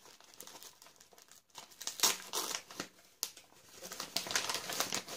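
Wrapping paper being crinkled and torn open by hand, in irregular rustling bursts that are loudest about two seconds in and again near the end.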